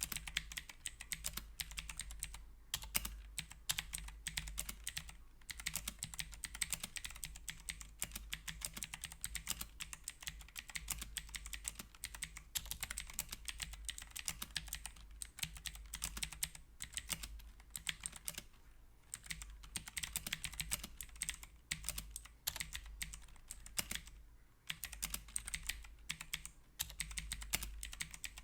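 Typing on a HyperX Alloy Origins mechanical keyboard with clicky blue switches: a rapid, continuous run of sharp key clicks, broken by a few short pauses.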